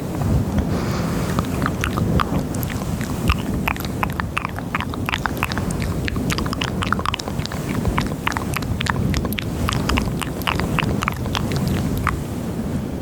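ASMR mouth sounds close to a high-gain microphone: rapid wet clicks and smacks of tongue and lips, starting about a second and a half in and thinning out near the end, over a steady low rushing rumble.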